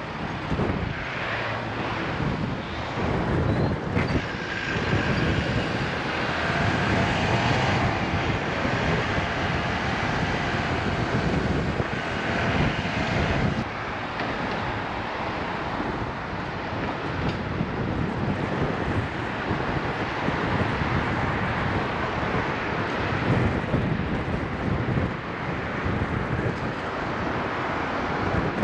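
Road noise heard while riding a bicycle in city traffic: wind rushing over the action camera's microphone and vehicles going by, with a passing vehicle's hum standing out from about five to thirteen seconds in.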